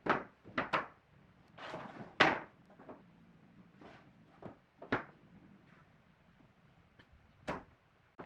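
Irregular wooden knocks and thuds, as of heavy timber pieces being handled or set together, with a short scrape just before the loudest knock about two seconds in.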